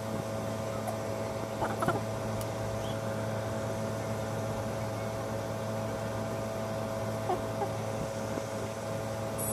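Steady low background hum with a few faint held tones, the kind a running fan or mains-powered machine gives, with small faint sounds about two seconds in and again near the end.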